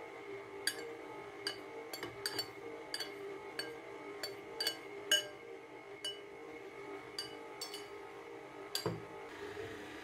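Metal spoon clinking against a glass mixing bowl: a dozen or more sharp, irregular taps that each ring briefly, as flour is knocked out of the bowl, with one duller knock near the end. Underneath, a KitchenAid stand mixer's motor hums steadily as its whisk turns.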